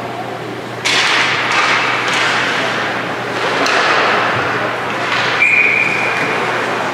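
Ice hockey rink noise: a sudden rush of broad noise about a second in that carries on, then a short, steady referee's whistle blast about five and a half seconds in.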